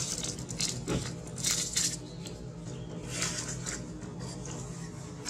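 Dry leaf litter rustling and crackling in several short bursts as monkeys move over it, over a steady low hum.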